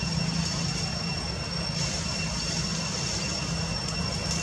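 Steady outdoor background noise: a continuous low drone like a distant engine, under a thin, high, unbroken whine.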